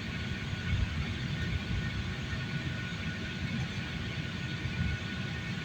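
Airliner cabin noise during takeoff: a steady engine and airflow rumble with a faint high whine held on one note.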